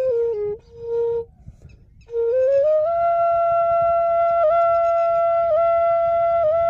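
Bansuri (bamboo flute) playing a slow melody: a few stepping notes, a short pause, then a note that slides up into a long held tone broken by quick brief dips.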